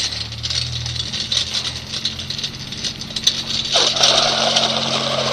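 A trike's wheels rolling fast down an asphalt road: a steady low hum with hissing road and wind noise. The noise turns rougher about four seconds in.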